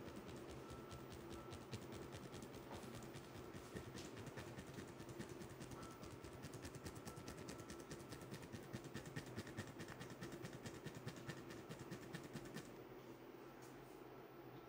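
Fingertips rubbing and pinching the skin of the forehead and eyebrows during a head massage, a faint fast crackle of skin friction that eases off near the end, over a steady low room hum.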